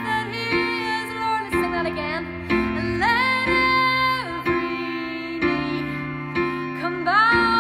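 A woman singing a worship song, accompanying herself on an electric keyboard with held chords. Her sung notes scoop up into long held notes, one just before the start, one about three seconds in and one near the end.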